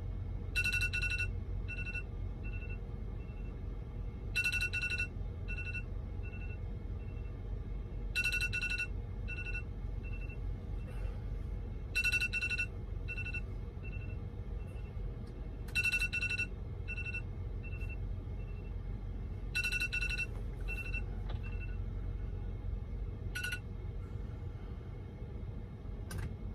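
Smartphone sounding a repeating electronic chime, like an alarm or ringtone: a short two-tone chime with a few fading echo beeps after it. It sounds seven times, about every four seconds, and the last one is cut short. A steady low hum runs underneath.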